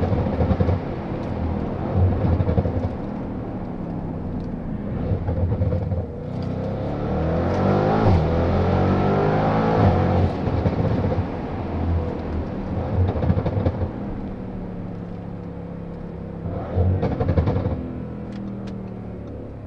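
Tuned Audi RS7 C8's twin-turbo V8, heard from inside the cabin while driving. The engine note rises and falls with the revs, with several brief surges in loudness.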